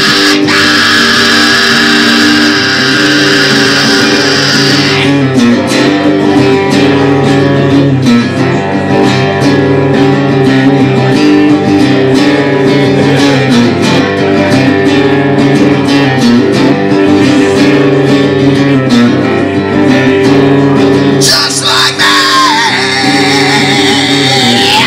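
Live music on an amplified guitar, strummed chords over held low notes, with a long wavering held note near the end.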